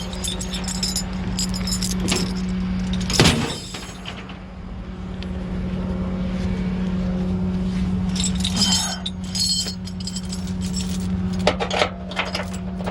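A vehicle engine idling with a steady hum, overlaid by sharp metallic clinks and clanks of tow equipment being handled: a loud one about three seconds in and clusters of lighter ones later on.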